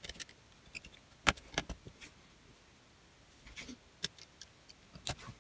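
Small screwdriver clicking and scraping on the tiny screws that fasten a netbook's cooling fan to its motherboard: scattered light clicks, with sharper ones about a second in, about four seconds in and near the end.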